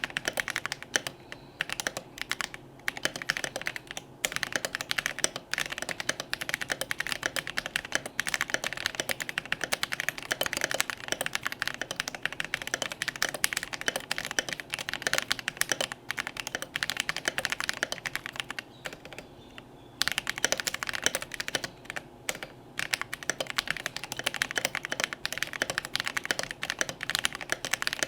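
Fast continuous typing on a mechanical keyboard: Invyr V3 Holy Panda tactile switches on a brass plate in a Melody96 with aluminium top and acrylic bottom case, under thick PBT double-shot OSA-profile keycaps. The keystrokes stop briefly about nineteen seconds in, then resume.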